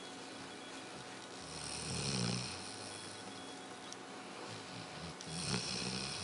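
A sleeping pet snoring: two snores, one about two seconds in and a longer one near the end, each a low rattle with a breathy hiss.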